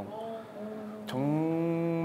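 A long, drawn-out chant-like vocal tone held at a flat pitch. About a second in it drops to a lower, louder held note.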